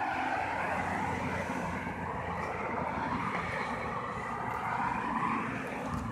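Road traffic passing, a steady rush of tyres and engines that swells slightly about five seconds in as a vehicle goes by.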